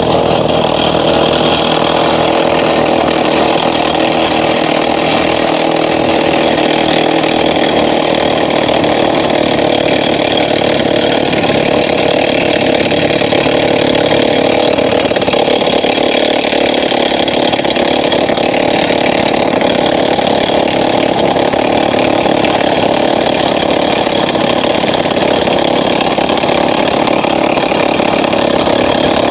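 A small engine-driven machine or power tool running steadily at an even pitch and level, without a break.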